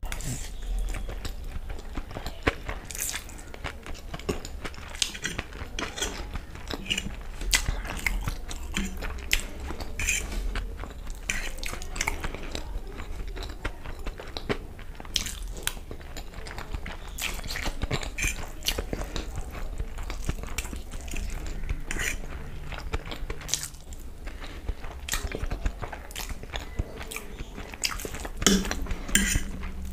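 Close-miked mouth sounds of someone chewing a mouthful of fried masala Maggi instant noodles: a dense, irregular run of short wet clicks and smacks.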